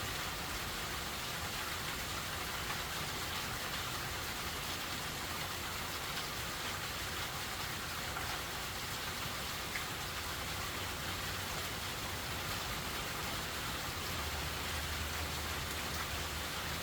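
Steady rain falling and pattering on surfaces, an even hiss without a break. A faint low rumble joins in about three-quarters of the way through.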